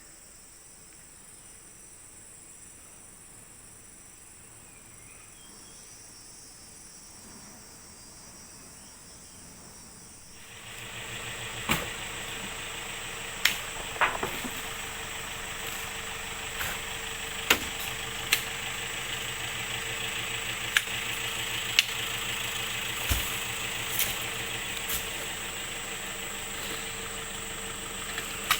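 Insects calling steadily, then about ten seconds in a vehicle engine comes in and keeps running, with a dozen or so sharp knocks and rattles over it.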